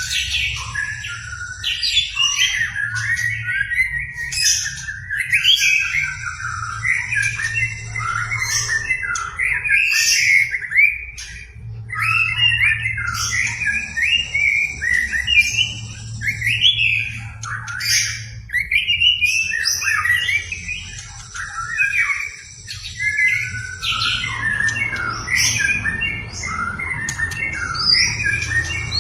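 White-rumped shama (murai batu) in full song: a continuous stream of fast, varied phrases with brief pauses, over a low steady hum.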